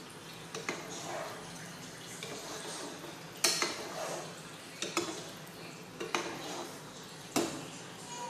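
Metal ladle stirring potatoes in broth in a cooking pot, clinking sharply against the pot about half a dozen times, loudest about three and a half seconds in.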